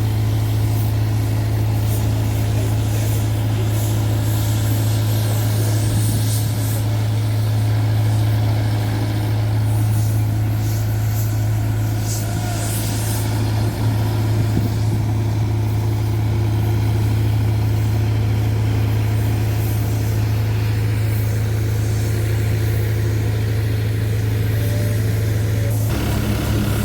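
Road roller's engine running steadily with a deep, even hum, shifting abruptly near the end.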